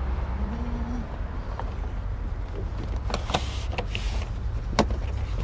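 A few sharp clicks and taps, a cluster about three seconds in and a single one near five seconds, over a steady low rumble.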